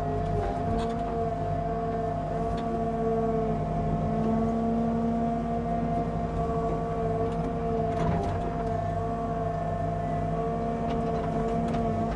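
Excavator's engine running steadily with a high, steady hydraulic whine as it digs out a trench in a creek bed, with a few faint knocks from the bucket.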